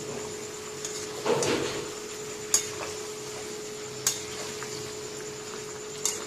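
Kitchen utensils knocking and clinking against a cooking pot: a short scrape about a second in, then three sharp knocks spaced a second or two apart, over a steady hum.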